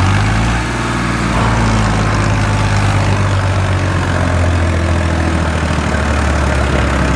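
Farmtrac 6055 PowerMaxx tractor's diesel engine running steadily at low revs, an even low drone.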